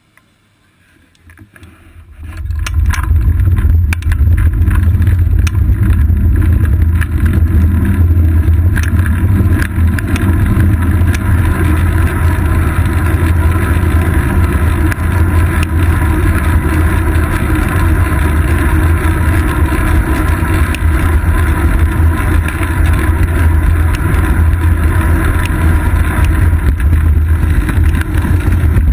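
Nearly quiet for about two seconds, then a steady, loud low rumble of wind and road vibration on a GoPro Hero 2 mounted on a bicycle's seat post as the bike gets moving, with scattered small knocks and rattles.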